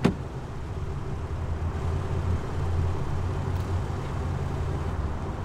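Car engine idling with a low steady hum, and a short knock right at the start as the car door opens.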